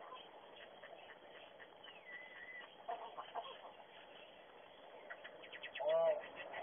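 A pet crow vocalizing. About two seconds in it gives a whistled note that slides down and levels off. Near the end comes a quick run of clicks, then one short, loud pitched call that rises and falls.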